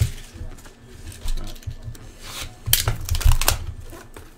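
Hands handling trading cards and a foil card-pack wrapper: rustling, light taps and crinkles, thickest a little past the middle.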